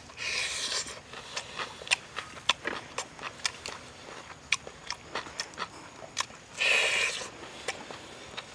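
Close-up eating sounds: pork ribs and their skin being torn apart and chewed, with many short, sharp crunchy clicks. There are two longer rasping noises, one at the start and one about two-thirds of the way through.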